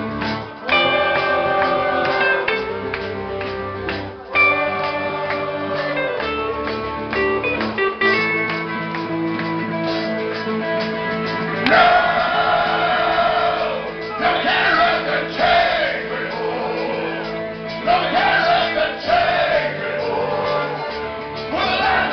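Live heavy metal band playing: electric guitars play sustained melodic lines over bass and drums, and singing comes in about halfway through.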